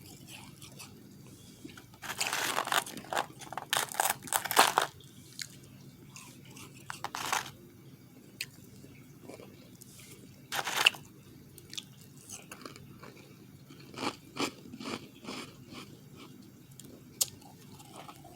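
Refrozen powdery ice being bitten and chewed close to the microphone: bursts of crunching with short pauses and single crackles between bites.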